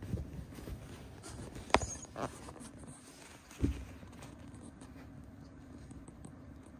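Two cats play-fighting on bedding: soft scuffling and rustling of fabric, with a sharp tap about two seconds in and a dull thump a couple of seconds later. A faint steady hum sits underneath.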